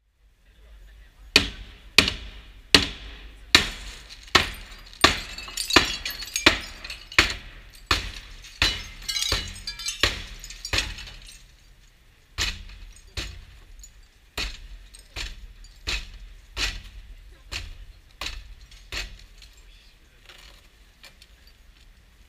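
Burglary-resistant window glass struck over and over with a metal bar, about one and a half blows a second, each a sharp crack with crackling and tinkling of broken glass between blows. About eleven seconds in the blows stop briefly, then resume more faintly as the glazing gives way.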